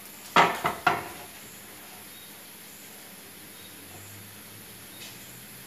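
Two sharp metal knocks about half a second apart as an iron tava is set against the gas stove's burner grate while being turned over, then a faint steady hiss from the lit gas burner.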